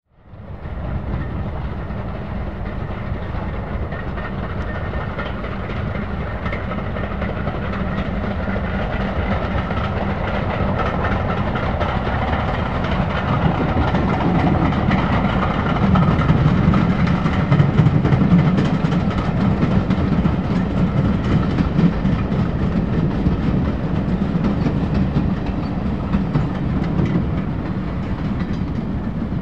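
LMS Stanier Class 5 4-6-0 steam locomotive hauling a train of carriages past, with the carriage wheels clattering over the rails. The sound swells to its loudest about halfway through as the train draws level, then holds steady as the carriages roll by.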